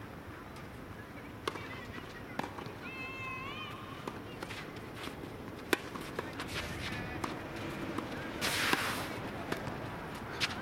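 Tennis rally: sharp racket-on-ball strikes and ball bounces at irregular intervals, the loudest about halfway through. Near the end, shoes scuff and slide on the court surface.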